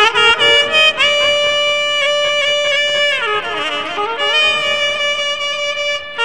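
Instrumental break in a Rajasthani devotional song (bhajan): a single lead instrument plays the melody in long held notes, sliding down in pitch around the middle and climbing back, over light accompaniment.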